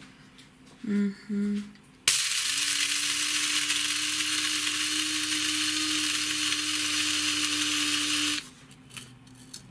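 Bosch electric blade coffee grinder grinding coffee beans: the motor starts suddenly about two seconds in, runs with a steady whirring hum for about six seconds, then cuts off.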